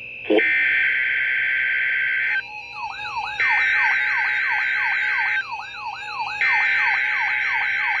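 NOAA Weather Radio's SAME digital header, three bursts of data tones each about two seconds long with about a second between them, heard through a Reecom weather alert radio's speaker; they mark the start of a Required Weekly Test. From about three seconds in, the radio's own alert siren, a rising-and-falling tone repeating about twice a second, sounds under the bursts.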